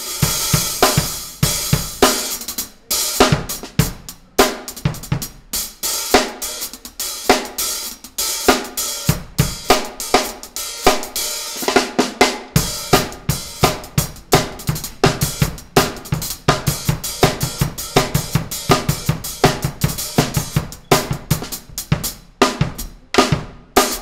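Meinl Pure Alloy 14-inch hi-hats played with sticks in a drum-kit groove, with snare and bass drum. The bass drum plays more often from about halfway through.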